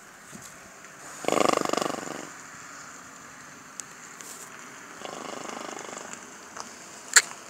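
A pony snorting, the breath blown through its nostrils with a fast fluttering rattle: a loud one about a second in and a fainter one about five seconds in. A sharp click near the end.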